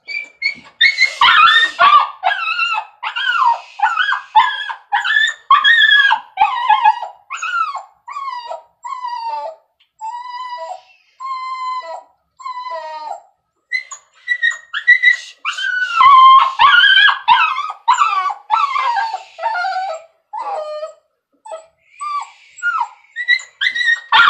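Small dog crying out over and over while being bathed, upset at the washing: a long run of loud, high-pitched yelping whines, about two a second, each bending in pitch. They grow softer in the middle and loud again a little past halfway.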